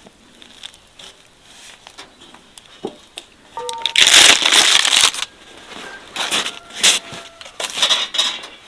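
Crisp crust of freshly baked potato bread crunching and crackling as a loaf is handled, in three bouts, the longest about a second.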